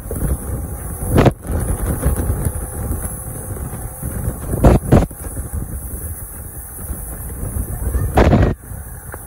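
Small motorboat running fast through rough, choppy water, with a steady rumble of wind, engine and hull noise. Heavy thuds come as the hull slams into the waves: one about a second in, two in quick succession near the middle, and a longer one near the end.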